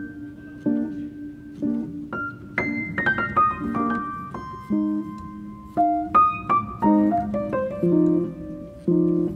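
Background piano music: a melody of single notes over repeated low chords.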